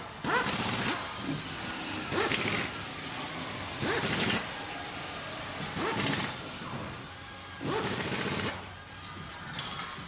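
Small-factory machinery at work: a machine cycles with a short noisy burst about every two seconds, six in all, over a steady background hum of the shop.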